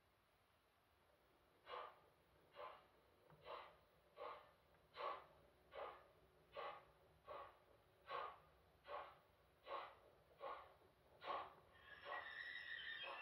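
Steam locomotive sound from the LokSound V4.0 digital sound decoder in a Philotrain brass model of NS 6003: exhaust chuffs start about two seconds in and go on at a slow, even beat of a little over one a second as the model pulls away. A short whistle sounds near the end.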